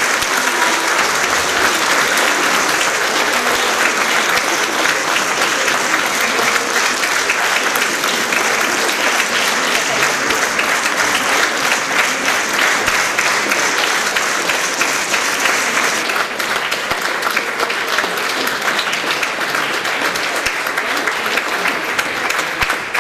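A large audience applauding in a concert hall: dense, steady clapping that eases slightly about two-thirds of the way through.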